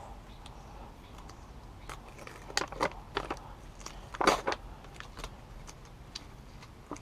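Crackling and rustling as a sheet of Dynamat Extreme foil-backed sound deadener is handled and its backing liner worked loose: a run of short crackles in the middle, the loudest about four seconds in.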